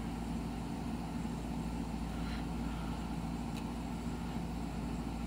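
Steady low room hum, like a fan or air-conditioning drone, with a faint soft slide of trading cards being moved in the hand about two seconds in.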